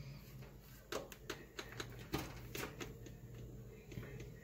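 Faint, irregular clicks and taps as a hand presses the buttons of an electric range's oven control panel, over a faint low hum.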